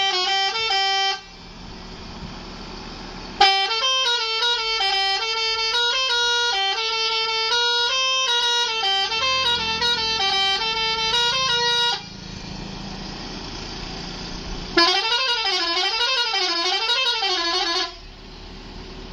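Telolet horn driven by a Basuri module, playing musical horn tunes. A short phrase at the start, then a long run of changing notes from about three to twelve seconds in. After a pause, a warbling pattern, its pitch swinging up and down several times, runs for about three seconds near the end.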